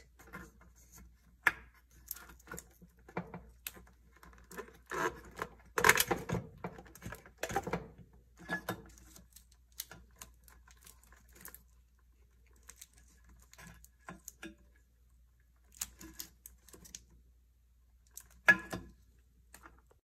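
Plastic wiring-harness connectors and wires being handled and pushed onto a refrigerator control board: irregular small clicks and rattles, the sharpest about six seconds in and again near the end.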